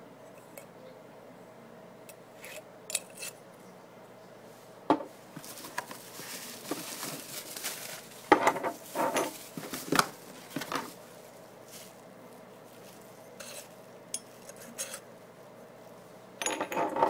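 Small glass shakers with perforated metal lids and stainless steel grinders handled and set down on a wooden table: scattered light clinks and knocks, thickest around the middle and again near the end.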